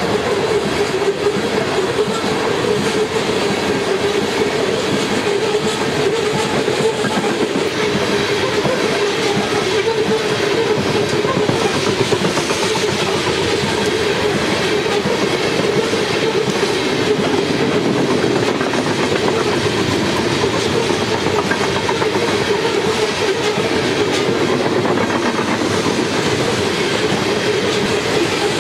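Freight train of aluminum coal cars rolling past at speed: a steady clatter and rumble of wheels on the rails, with a constant drone underneath.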